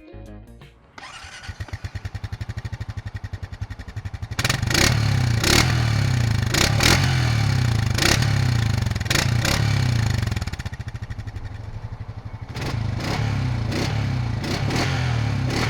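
A 2023 Honda Foreman 520 ATV's single-cylinder four-stroke engine is cranked over by its electric starter for about three seconds. It catches about four seconds in and runs steadily. It drops to a quieter idle for a couple of seconds near the middle, then picks back up.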